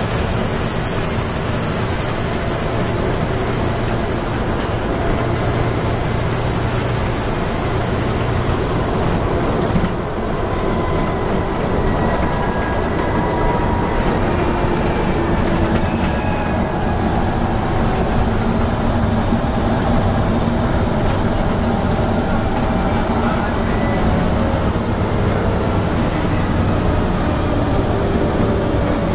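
Scania N94UB Omnidekka double-decker bus heard from inside the passenger saloon while under way: its nine-litre five-cylinder diesel engine running steadily under road and tyre noise. A loud hiss eases about ten seconds in, after which faint whining tones rise and fall as the bus changes speed.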